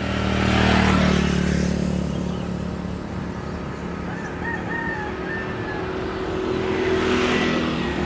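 Motor vehicles passing on a road, a steady engine drone that swells about a second in and again near the end. In the middle, a rooster crows once.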